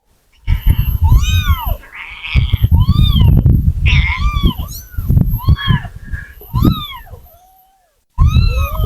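Young domestic kitten meowing repeatedly, a string of high-pitched arching mews roughly one a second, over loud low rumbling noise.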